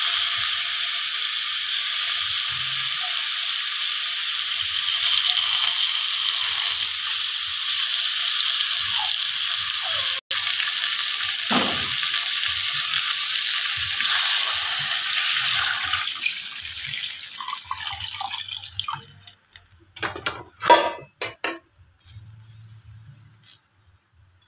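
Milkfish pieces and tomatoes sizzling in oil in an aluminium pot, a steady hiss that fades away after about sixteen seconds. A few short knocks follow near the end.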